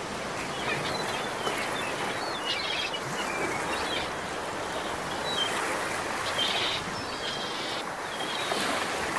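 Nature ambience: small birds chirping now and then over a steady rush of running water.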